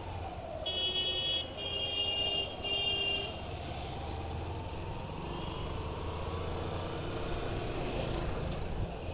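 Hero Hunk motorcycle's single-cylinder engine running at low speed, its pitch rising from about four seconds in as it pulls away. A horn sounds three short times about a second in, louder than the engine.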